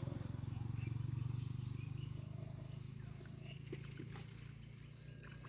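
A low, pulsing engine-like drone that slowly fades away, with a few faint ticks in the second half.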